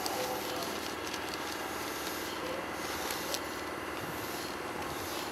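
Newspaper rustling and crinkling with a few sharp crackles as a folded paper hat is shaped and put on, over a steady background hum.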